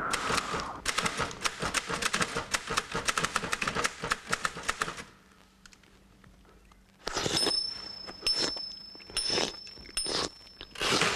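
Electronic sound effects from an animated film soundtrack: a dense run of crackling clicks for about five seconds, then a short lull, then four or five bursts of hiss over a thin, steady high whistle.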